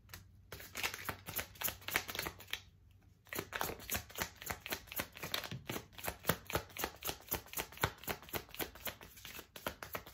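A tarot deck being shuffled by hand: rapid dry card slaps and flicks, with a short pause about three seconds in.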